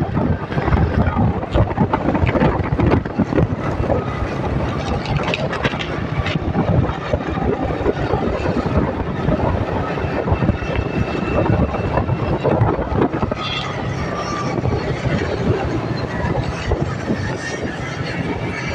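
Motorcycle ride on the open road: wind buffeting the microphone over the motorcycle's running engine, a steady loud rush.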